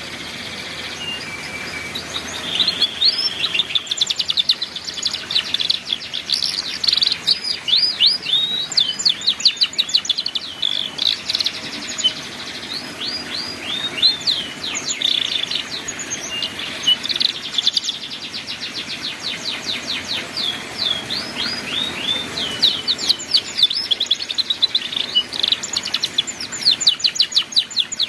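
Domestic canary singing a long, fast twittering song of rapid trills and repeated upswept notes in the 'ngeriwik' style, used as a master song for young canaries to learn from.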